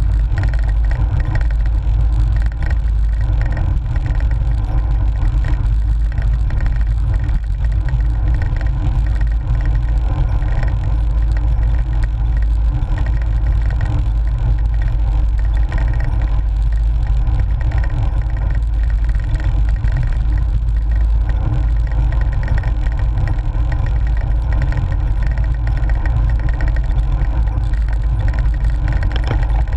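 Steady wind rush and tyre rumble picked up by a GoPro on the handlebar of a moving cyclocross bike, heavy in the low end with no break.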